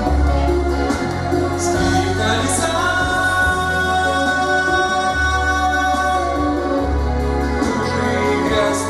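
Song with a singing voice over electronic keyboard backing and a deep bass line; a long note is held through the middle.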